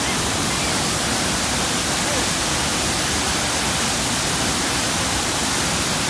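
Waterfall pouring down a rock face into a river running with plenty of water: a loud, steady rush of water.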